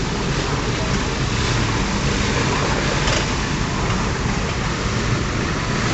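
Engines of historic racing cars running at low speed as the cars roll slowly into the paddock, a steady rumble.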